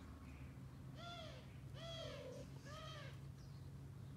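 Cat meowing three times, about a second apart, each meow rising and then falling in pitch, over a steady low hum.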